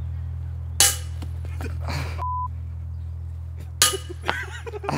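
Two sharp metallic hits of a disc golf disc striking the metal basket, about three seconds apart, each with a brief rattle and followed by a short exclamation. A short steady beep cuts in about two seconds in, over a steady low hum.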